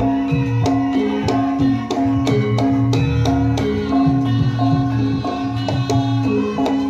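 Javanese gamelan-style dance music: kendang hand-drum strokes over a repeating melody of held pitched notes.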